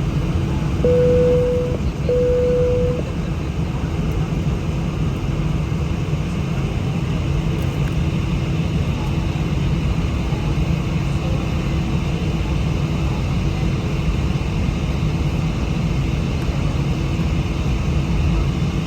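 Steady low rumble of an Airbus A319 jet airliner, heard inside the cabin. Two short steady tones of the same pitch, each about a second long, sound near the start.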